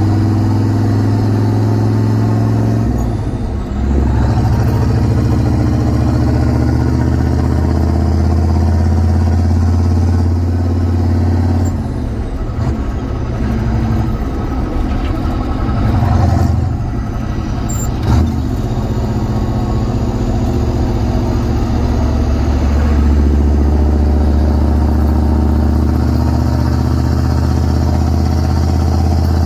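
6.2-litre turbo-diesel V8 of a squarebody K20 pickup running under way, heard from inside the cab. Its note changes pitch and dips several times, with a short sharp click about 18 seconds in.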